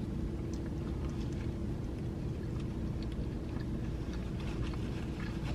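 Faint chewing: soft scattered mouth clicks over a steady low hum.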